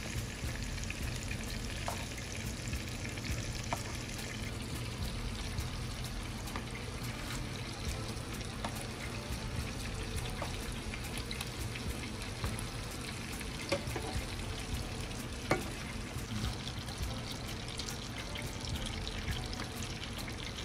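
Shrimp sizzling steadily in bubbling butter and oil in a nonstick frying pan, with a few sharp clicks of tongs against the pan as the cooked shrimp are lifted out.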